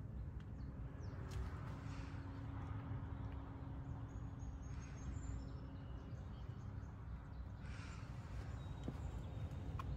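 1996 Honda Civic SiR's B16A four-cylinder engine idling steadily at about 1,000 rpm, a low, even hum.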